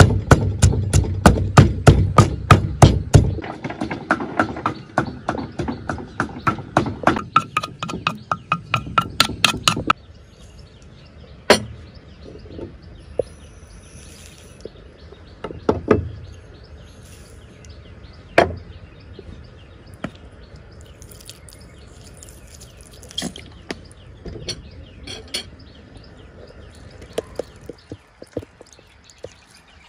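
Pestle pounding chilli, shallot and garlic paste in a stone mortar, a fast steady run of thuds at about three to four strokes a second that stops about ten seconds in. After that come only a few single knocks against the mortar.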